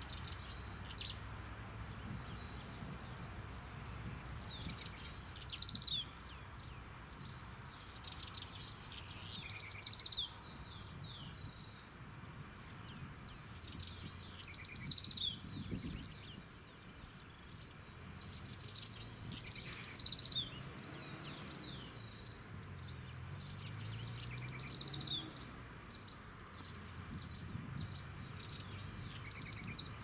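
Wild birds singing and chirping, a continual run of short, high trills and falling twitters from several birds, over a low, steady background rumble.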